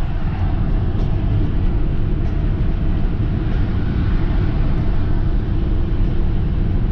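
Steady low rumble of road and engine noise inside a moving vehicle's cabin, cruising on a dual carriageway.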